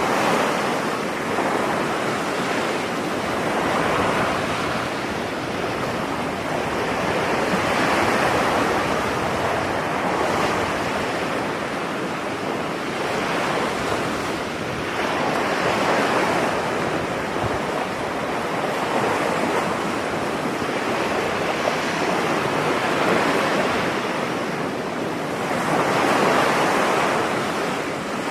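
Ocean waves breaking and washing on a beach, a continuous surf that swells and eases every few seconds.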